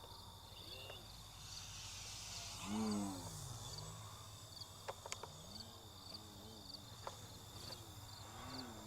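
Crickets chirping in a steady, even rhythm, with the faint motor of a radio-controlled Extra 300 aerobatic plane wavering up and down in pitch as it flies.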